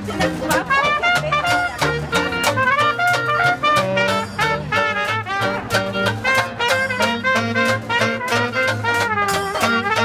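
Upbeat swing-style music led by trumpet and other brass over a steady beat.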